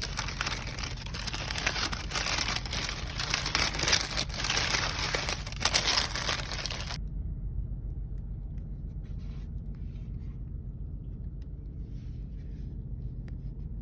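Steady low engine hum from a vehicle or ship. Over it, a loud crinkling, rustling noise runs for about seven seconds and then cuts off suddenly.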